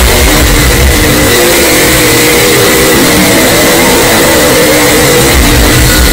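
Jumpscare sound effect, distorted and blaring at full volume: a harsh noise across the whole range with a few held tones that step up and down in pitch.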